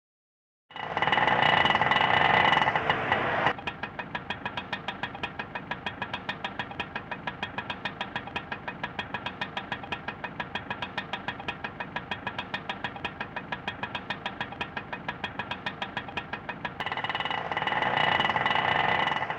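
Auto rickshaw engine: a loud, higher-pitched burst of running, then a steady idle of rapid, even putts, then another loud burst near the end.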